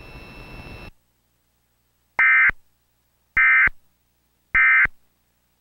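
Emergency Alert System end-of-message code: three short, loud, raspy data-tone bursts about a second apart, sent from a Trilithic EASyPLUS to close the Amber Alert broadcast.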